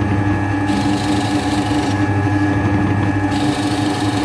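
Scheppach DP Vario 18 drill press running with a steady motor hum and whine while its bit bores into a wooden board, the hiss of the cut coming in twice as the bit is plunged.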